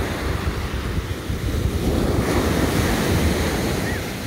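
Small waves breaking and washing up over sand at the shoreline, swelling louder about two seconds in, with wind buffeting the microphone as a low rumble.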